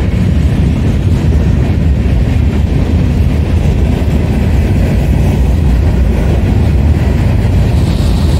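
Manifest freight train's cars rolling past close by: a loud, steady rumble of steel wheels on the rails.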